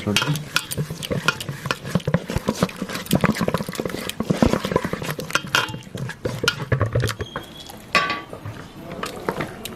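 A wet masala paste being stirred and scraped in a bowl with a utensil, with irregular clinks against the dish.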